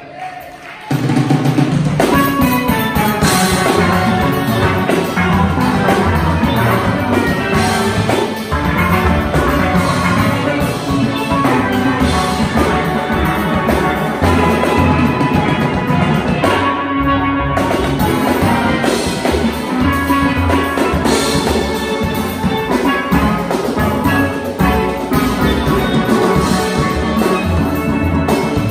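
Steel orchestra of tenor, double-second, cello and bass pans with a drum kit playing a calypso at full volume. The whole band comes back in together about a second in, after a brief break.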